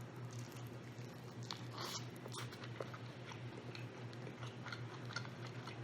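A person biting and chewing rotisserie chicken, close to the microphone, with scattered small wet clicks and a few brief louder smacks.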